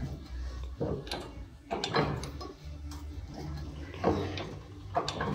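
A handful of separate knocks and clinks of a thin sheet metal strip and the steel forming jaws of a manual bench shear being handled, over a low steady hum.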